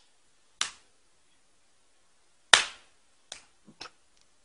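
Playful open-hand slaps on skin: a sharp slap about half a second in, a louder one around two and a half seconds, then a couple of lighter smacks in quick succession about a second later.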